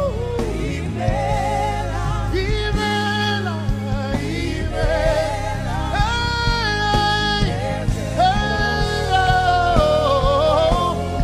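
Live gospel worship music: a lead voice sings a slow melody with vibrato, holding long notes and sliding between them, over a band's sustained chords.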